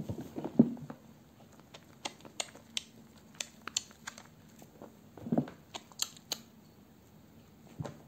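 Wet hands lathering softened, soaked bars of black currant soap in thick foam. Squelching squeezes come about half a second in and again around five seconds in, with scattered sharp wet clicks and pops between.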